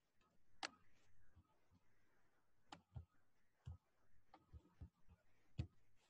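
Near silence broken by faint, irregular clicks of a computer keyboard and mouse, about eight in all, coming singly and in quick pairs.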